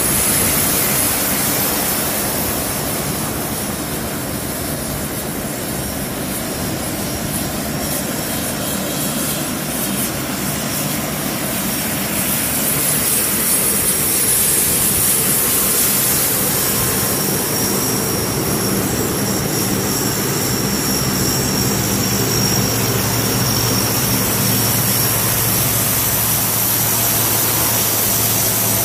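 Turboprop engines of several C-130 Hercules transport aircraft taxiing in a line. A steady loud drone of spinning propellers with a high turbine whine on top, swelling a little after the middle.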